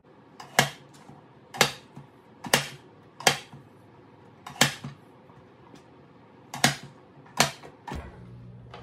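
Push-down vegetable chopper slammed shut again and again as peaches are pressed through its dicing grid: seven sharp plastic clacks, about one a second, with a short pause midway.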